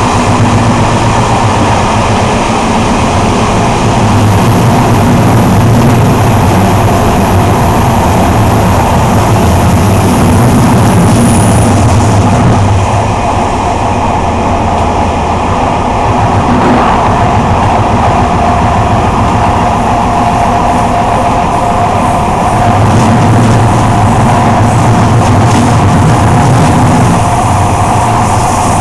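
Train running on the rails, heard from inside the locomotive cab: a loud, continuous rumble with a low hum that eases off for about ten seconds in the middle and then returns.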